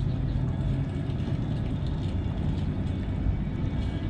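Steady low rumble of running machinery, even and unbroken, with a faint hum in it and no distinct knocks or clicks.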